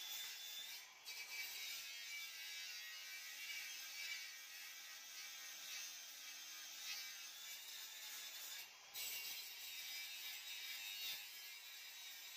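Cordless angle grinder working a welded corner of steel angle iron, a steady high grinding hiss, with two brief breaks about a second in and near nine seconds.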